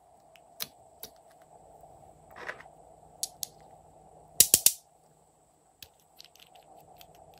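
Small glass nail polish bottles being handled: scattered sharp clicks and taps, with a quick burst of three loud clicks about four and a half seconds in.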